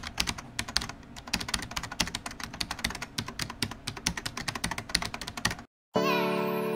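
Rapid, uneven keyboard typing clicks that stop abruptly near the end, followed a moment later by soft piano music.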